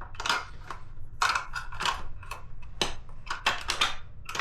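12-gauge shotgun shells being pushed and twisted into a 20-round drum magazine: a string of irregular sharp clicks and clatters, several a second.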